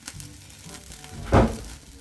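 Background music, with one loud thunk about a second and a half in and faint sizzling from rabbit meat roasting over a wood fire.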